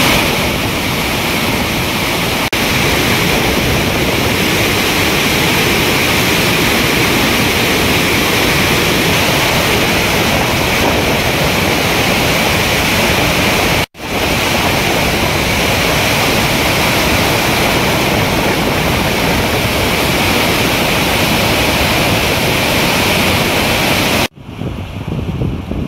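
Floodwater pouring through a dam's open spillway gates: a loud, steady rush of water. It breaks off for an instant about halfway, and near the end gives way to a quieter rush.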